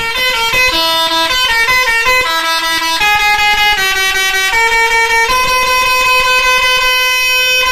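Basuri multi-tone telolet air horn on a bus playing a quick tune of changing notes, ending on one long held note.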